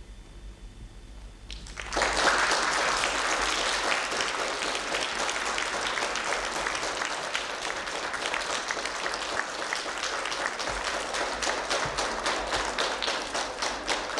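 Audience applause, breaking out about two seconds in after a short hush and going on steadily, with individual claps standing out more clearly near the end.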